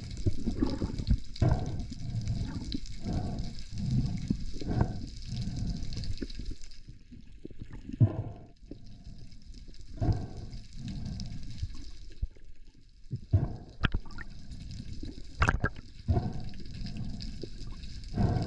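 Water sloshing and gurgling around the camera in irregular surges, with one sharp click late on.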